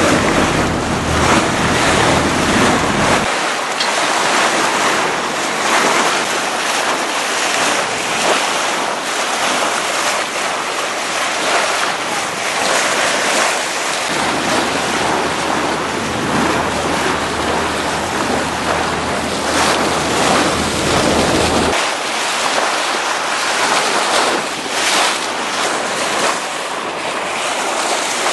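Wind buffeting the microphone over the steady rush and splash of a moving boat's bow wave through open sea. A low rumble is heard for the first three seconds and again through a stretch in the middle, cutting in and out abruptly.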